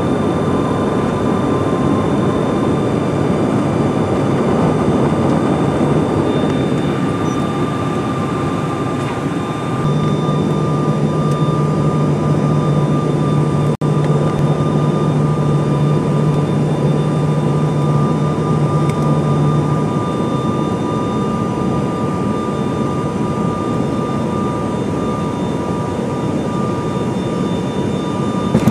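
Steady engine and air noise inside the cabin of a high-wing airliner descending to land, with two steady high tones over it. A low hum joins for about ten seconds in the middle.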